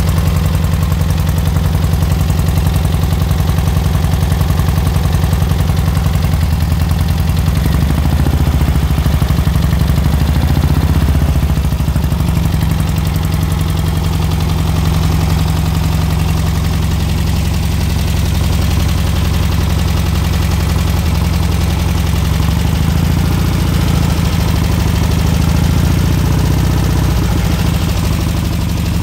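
Volkswagen air-cooled flat-four engine of a Baja Bug, fitted with twin Empi carburettors and twin cannon exhausts, idling steadily, its idle rising slightly for a few seconds and shifting a little now and then.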